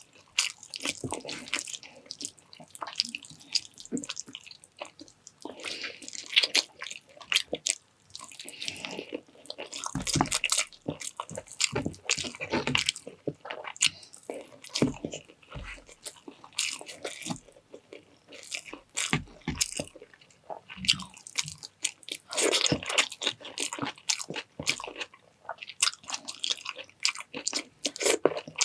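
Close-up eating sounds of a person chewing and biting through a meal, with irregular crunches and wet mouth clicks.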